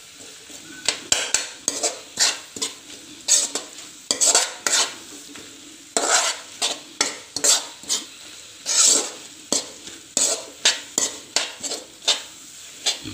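Metal spoon scraping and stirring onion-tomato masala with spice powders in a metal kadai, with repeated scrapes against the pan about two a second over a steady sizzle of the masala frying in coconut oil. The masala is being fried until it browns, before water is added.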